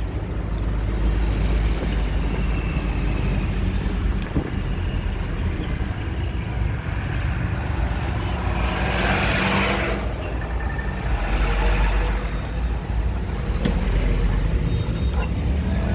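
Steady low rumble of a motor vehicle running, with a louder rushing swell about nine seconds in.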